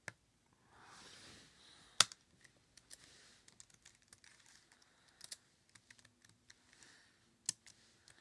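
Typing on a laptop keyboard: a run of irregular small key clicks, with two sharper, louder clicks, one about two seconds in and one near the end.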